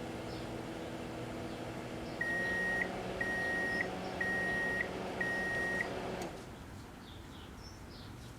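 1987 GE microwave oven running with a steady hum, then beeping four times about a second apart as its timer runs out. The hum cuts off a moment after the last beep.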